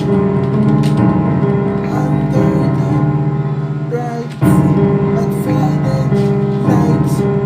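Music: sustained keyboard chords under a melody line. About four seconds in, the music dips briefly and then comes back in louder.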